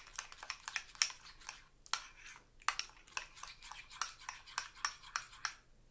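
Metal spoon stirring thick tikka masala marinade in a small ceramic cup, clinking and scraping against its sides in quick, uneven strokes, several a second.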